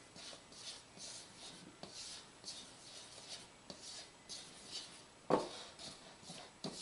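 Spatula stirring dry flour mix in a mixing bowl: quick, even scraping strokes, about three a second. A louder knock comes about five seconds in.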